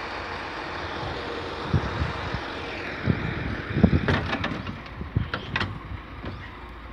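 Diesel engine of a Volvo EC210BLC excavator running steadily, with a series of low knocks and thumps from about two seconds in and a few sharp clicks near the middle.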